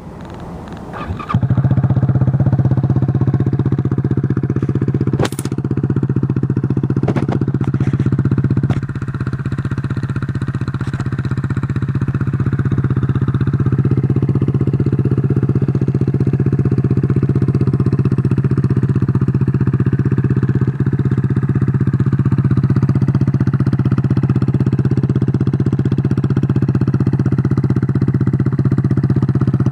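Kawasaki KZ250 CSR's single-cylinder four-stroke engine, bored out to 305 cc, running: it comes up in level about a second and a half in and then idles steadily. A sharp click sounds about five seconds in.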